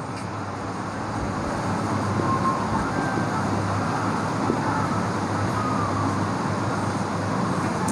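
Steady rumble of road traffic, swelling over the first two seconds and then holding.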